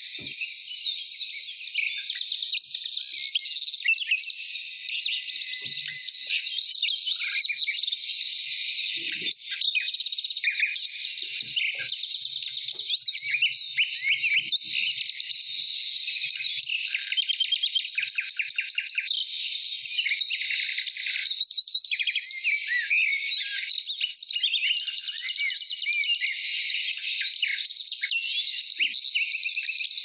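A dense chorus of many small birds chirping and calling at once, a steady stream of rapid, high-pitched chirps that never stops.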